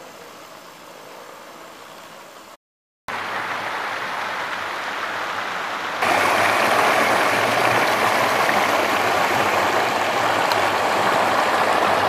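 Water rushing over rock cascades in a stream, a steady rushing noise. It cuts out for half a second near 3 s and comes back louder, then steps up louder again at about 6 s as the water is heard close up.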